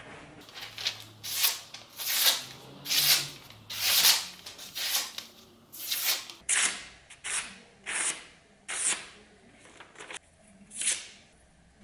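A freshly sharpened knife blade slicing through a sheet of paper again and again, each cut a short, sharp hiss, more than a dozen in quick succession: a paper-cutting test of the edge's sharpness.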